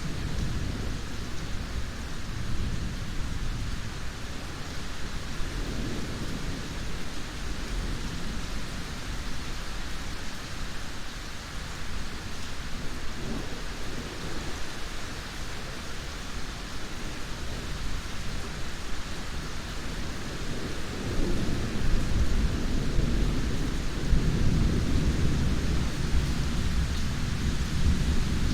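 Steady heavy rain with low rolling thunder underneath; the rumble swells louder about three-quarters of the way through.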